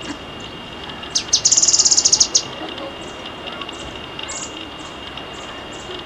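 A small songbird singing. A couple of sharp downward-sweeping notes about a second in lead into a fast, very high trill lasting about a second, followed by scattered short high chips. A thin steady high tone runs underneath.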